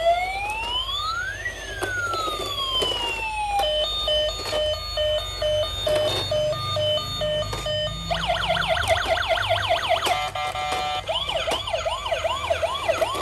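Battery-powered toy police truck's electronic siren cycling through its tones. First a slow rising and falling wail, then a steady repeating beep from about four seconds in, then a fast warbling yelp from about eight seconds in.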